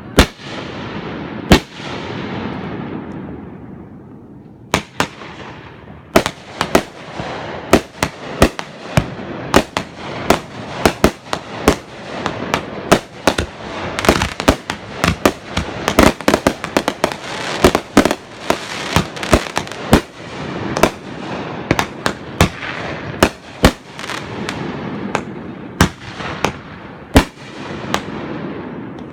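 Aerial fireworks bursting: a few sharp bangs with a fading rumble, then from about six seconds in a rapid run of bangs, many shells going off close together with rumble and crackle between them.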